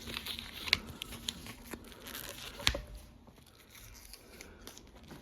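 A hang tag being torn off a new clothing vest: tearing and crinkling with several short sharp snaps, the sharpest about two and a half seconds in, then quieter rustling of the fabric.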